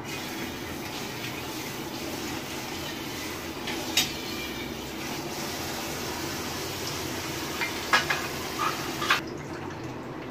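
A steady rushing hiss with a few sharp clicks and knocks, cutting off suddenly about nine seconds in.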